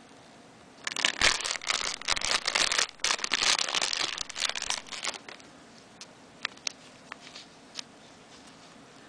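Clear plastic bag crinkling as a wristwatch is handled in it and slid out: dense crackling for about four seconds, then a few scattered clicks and rustles.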